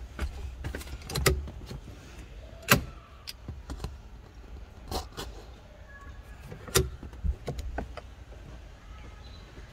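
Hard plastic seat-mount trim cover being worked loose with a small screwdriver and pulled off: scattered clicks and knocks of plastic and tool. The sharpest comes a little under three seconds in.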